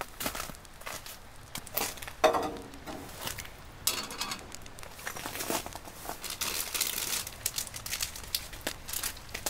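Rustling and crinkling of clothing and a soft cooler bag being handled, with a short metallic clink from a stainless steel cup a little after two seconds in.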